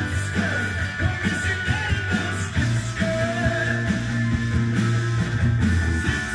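Rock music playing from a vinyl record on a Dual 1229 idler-drive turntable, a steady beat under guitar.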